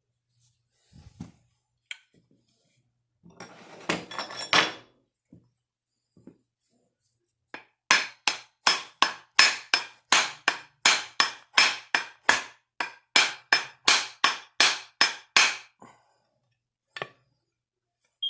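A steady run of about two dozen hammer blows, roughly three a second, each with a short ring, driving the axe head down onto its reshaped wooden handle. A brief scraping rustle comes a few seconds before the blows begin.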